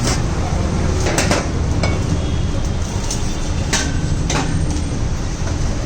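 A few sharp knocks of a knife or cleaver chopping grilled chicken on a cutting board, over a steady, loud background din.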